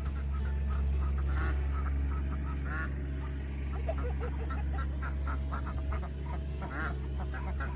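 A flock of farm birds calling over and over in short quacking and honking calls that overlap, with a steady low hum underneath.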